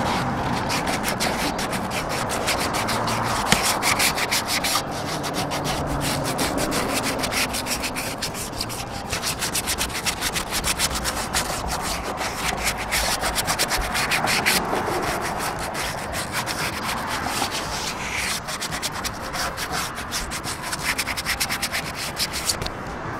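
Sandpaper rubbed by hand in rapid back-and-forth strokes around the edges of a van's rear brake-light opening, on the painted steel body. It is light sanding to loosen dirt before paint, and it stops just before the end.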